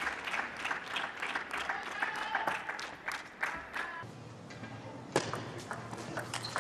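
Crowd applauding in a table tennis hall for about four seconds, then a quieter hall hum with a few sharp clicks of a table tennis ball struck by bats and bouncing on the table as a new rally begins.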